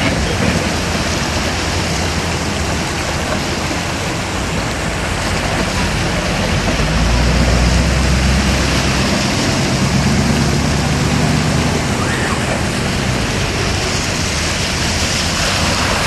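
Steady rushing of water pouring over a waterfall, with a deeper low rumble that swells from about six to twelve seconds in.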